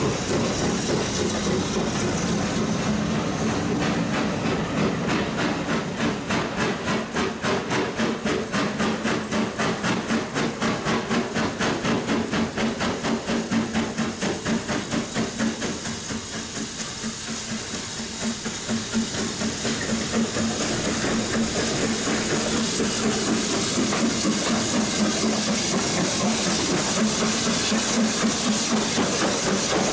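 The two-cylinder 2-10-0 steam locomotive, BR Standard Class 9F No. 92214, working a train: a rapid, regular chuff of exhaust beats over steam hiss. It dips in loudness a little past halfway, then builds again.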